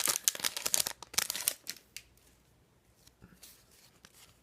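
Crinkly card-pack wrapper being torn open and handled, with a dense run of crackles for about the first two seconds, then only a few faint rustles and clicks.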